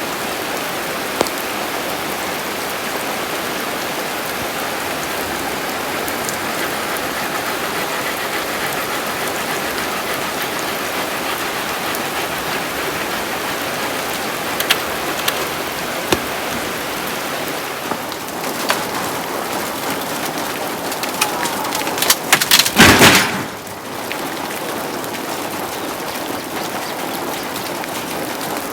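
Heavy rain falling steadily, with scattered sharp drop hits. About 22 seconds in, a loud crackling burst lasts a second or so, then the rain goes on.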